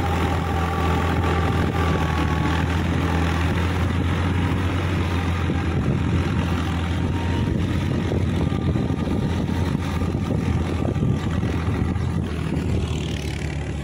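Diesel tractor engine running steadily under load while driving a rotary tiller through wet soil, growing a little fainter near the end as it moves away.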